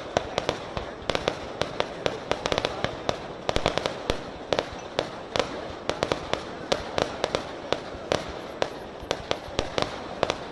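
Fireworks display going off: sharp bangs in quick, irregular succession, several a second, over a continuous rush of noise.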